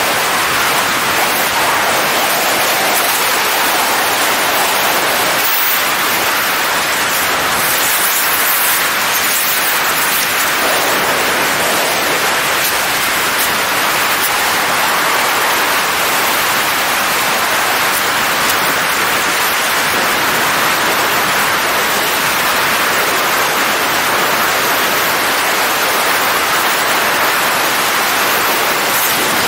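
Steady, loud rush of wind over a camera microphone in wingsuit flight, an even hiss that does not change.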